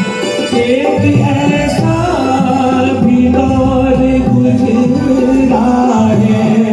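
Live music: singing with instrumental accompaniment, a melody with sliding notes.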